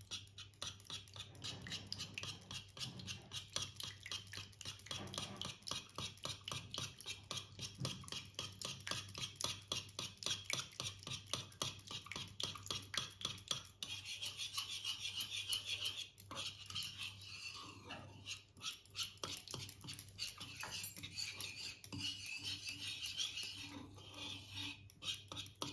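Wire hand whisk beating strained yogurt into warm thickened milk in a non-stick kadai, with quick, even strokes that scrape and swish against the pan, breaking off briefly a couple of times past the middle. A low steady hum runs underneath.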